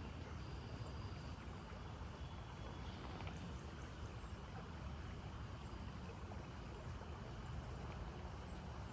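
Steady low rumbling outdoor noise, with faint high chirps over it.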